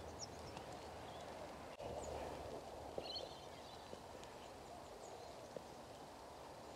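Faint early-morning outdoor ambience with a few short, high bird chirps scattered through it. A brief loud noise comes right at the end.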